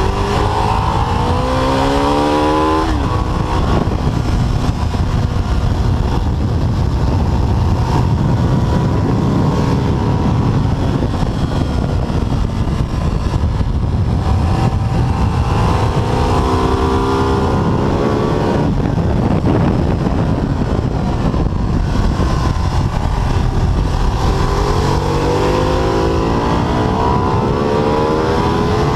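Ducati 848's L-twin engine pulling hard on track. Its note climbs in pitch three times and drops back sharply after the first two climbs, under a constant loud rush of wind on the bike-mounted microphone.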